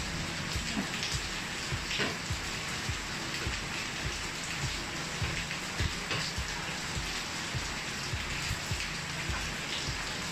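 Steady rain falling, with drops ticking irregularly on nearby surfaces, and a few faint knocks mixed in.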